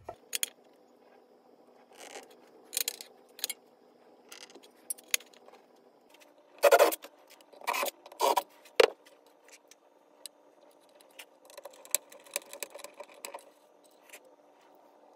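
Small hardware and hand tools handled on a workbench: scattered light clicks and clinks as the speed square, screws and little rubber feet are picked up and set down, with a cluster of four louder knocks and scrapes about seven to nine seconds in.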